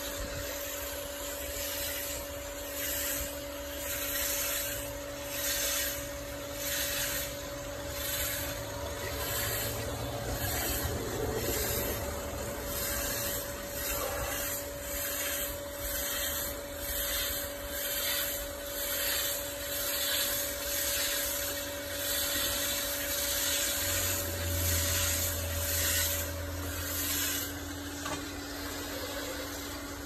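Water spray from a hose nozzle hissing against the finned coil of a pool heat pump, swelling and fading about once a second as the jet sweeps back and forth across the fins. A steady hum runs underneath.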